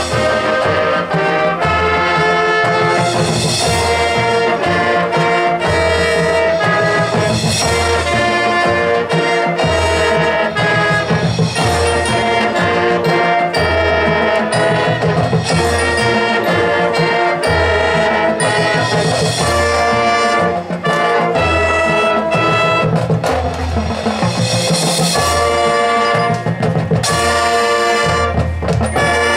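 Marching band's brass section playing loud sustained chords over a pulsing low line, trumpets, trombones and sousaphones together.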